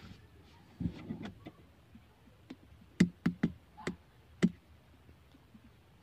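Handling knocks on a car's dashboard: a soft bump about a second in, then five sharp knocks and taps in quick succession between three and four and a half seconds in.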